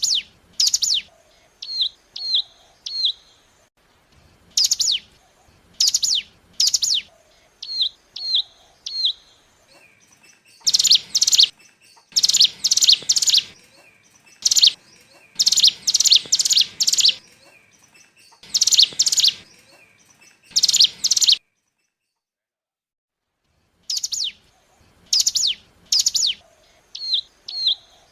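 Ciblek gunung song: sharp, high, down-slurred notes in spaced phrases, each followed by three short hooked notes, then dense runs of rapid chattering notes. It cuts out completely for about two seconds late on before the phrases start again.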